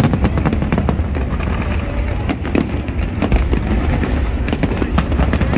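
Fireworks display going off: a rapid run of sharp bangs and crackles over a steady low rumble of booms.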